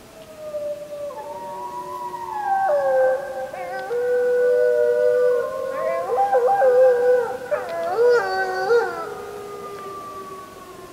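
A pack of wolves howling in chorus, several voices overlapping at different pitches, their long notes stepping and wavering. Shorter broken yips join in around eight seconds in, and the chorus thins out near the end.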